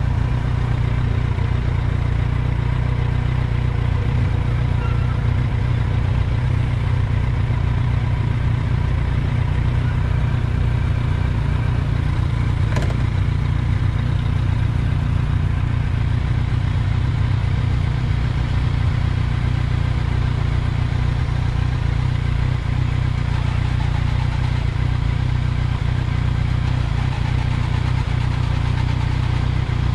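Sport motorcycle engine idling steadily at a standstill.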